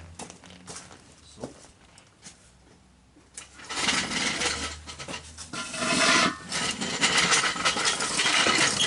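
A few faint clicks, then from about three and a half seconds in a loud stretch of rubbing and scraping with short squeaks, as equipment is handled and moved about.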